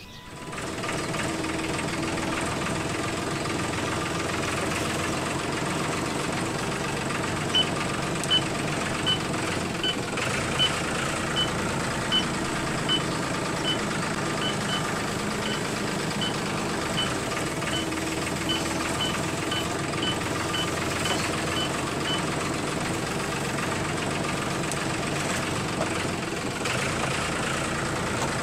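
Engine sound of a DIY model two-wheel tractor running steadily, with a series of short, high reversing beeps, about one every three-quarters of a second, through the middle of the stretch.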